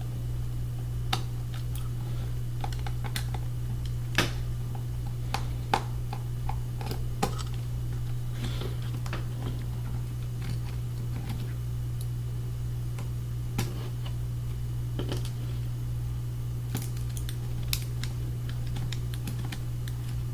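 Irregular small clicks and taps of hand work on a laptop's underside: a Phillips screwdriver turning out the hard drive screws and plastic parts being handled, over a steady low hum.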